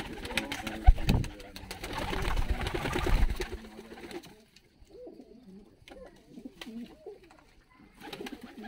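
A loft of Georgian fighting pigeons cooing, low wavering calls from several birds at once. In the first few seconds there is louder rustling with a sharp knock about a second in.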